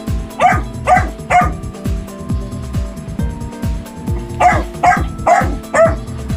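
Labrador puppy giving short, high barks: three about half a second apart near the start, then four more in quick succession just past the middle.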